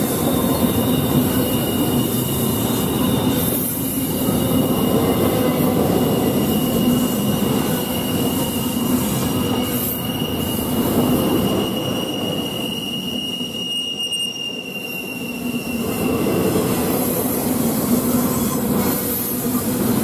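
Double-stack intermodal train's loaded well cars rolling past, steel wheels rumbling on the rails. A steady high-pitched wheel squeal sings over the rumble and stops about three quarters of the way through.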